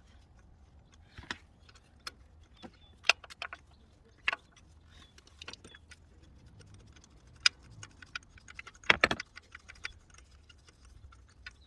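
Irregular metallic clicks and clinks of a ratchet and deep spark plug socket as a spark plug is loosened and drawn out of the engine. The loudest clatter comes about nine seconds in.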